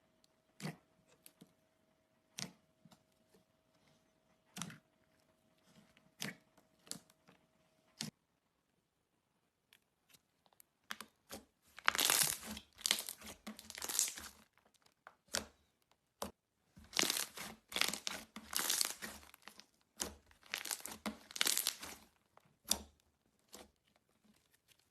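Slime being pressed and squeezed by hand: scattered sticky clicks and pops at first, then, from about eleven seconds in, several dense bouts of crackling.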